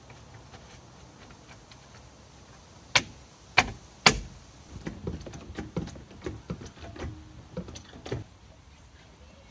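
Wheel cover being snapped onto a van's steel wheel: three sharp snaps about three seconds in, then a run of lighter knocks, about two a second, as it is pressed and tapped home around the rim.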